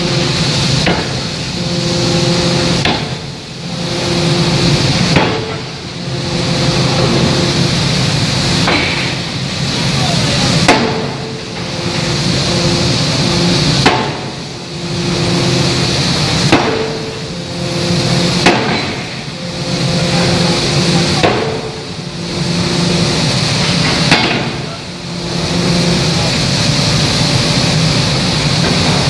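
A 2-ton hydraulic open-die forging hammer upsetting a workpiece. It works in loud runs about two seconds long, broken by short pauses every two to three seconds, with sharp cracks at some of the breaks and a steady pitched hum during the runs.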